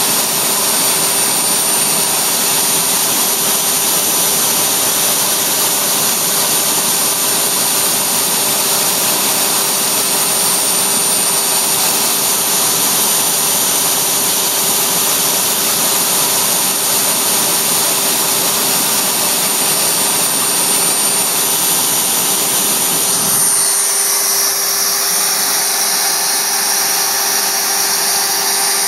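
DIY CNC router spindle running steadily at high speed with a 3/32-inch bit in clear polycarbonate, giving a loud steady whine with a high held tone. Near the end the deeper part of the noise drops away and the sound thins out.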